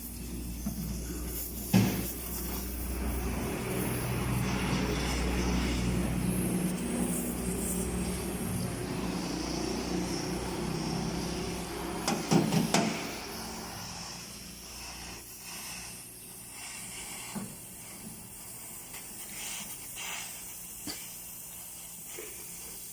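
A motor running with a steady low hum, with a sharp knock about two seconds in and a cluster of knocks at about twelve seconds. The hum fades out about thirteen seconds in, leaving scattered clicks and knocks.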